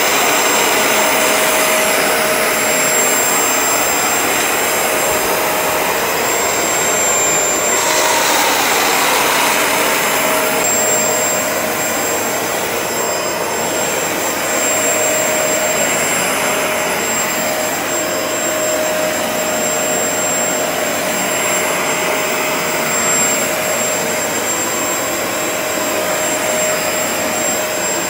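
Bissell ProHeat 2X Revolution Pet Pro carpet cleaner running steadily while being pushed over carpet: an even motor rush with a steady high whine over it.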